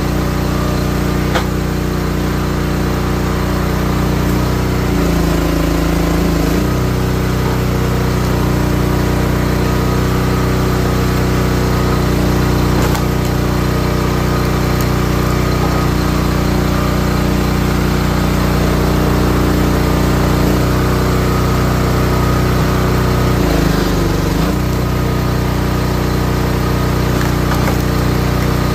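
Small gas engine of a Wolfe Ridge 28-ton log splitter running steadily while it splits firewood rounds. Its note dips briefly about five seconds in and again near the end.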